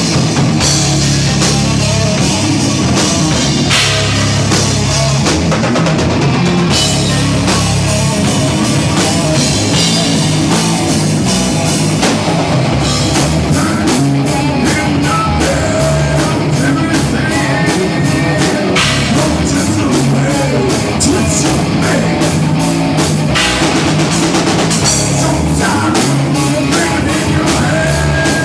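Loud rock music with a driving drum kit, playing without a break.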